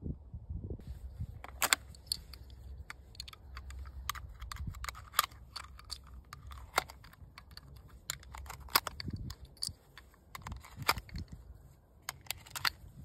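Irregular sharp metallic clicks and scrapes of cartridges being handled and pressed into the detachable box magazine of a Verney-Carron Impact LA pump-action rifle.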